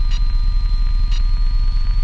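Piper Cherokee's engine heard through the intercom as a steady low rumble, with a constant electrical whine and a faint tick about once a second.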